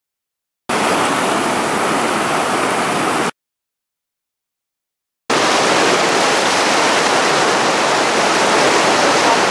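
Whitewater rapids rushing, a steady noise heard in two stretches: from just under a second in to about three seconds, then again from about five seconds on, with dead silence before and between.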